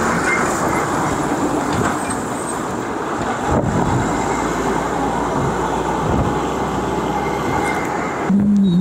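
Wind rushing over the microphone and road noise from a moving electric scooter as it overtakes a bus, with the bus's engine running close alongside as a low steady hum. A short steady tone starts near the end.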